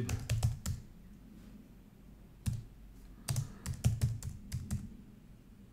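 Typing on a computer keyboard: a quick run of keystrokes at the start, a pause of over a second, then more keystrokes from about two and a half seconds in.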